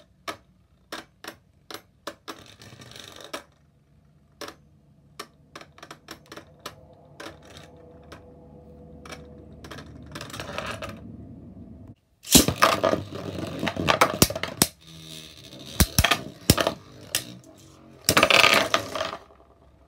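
Beyblade Burst spinning tops in a plastic stadium: scattered sharp clicks and ticks over a faint steady whirr as the tops scrape and knock against the stadium. About twelve seconds in the sound turns to much louder rattling and clashing, with a loud burst near the end.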